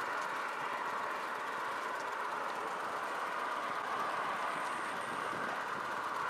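Steady hiss of road traffic, tyre noise from vehicles going by on a road.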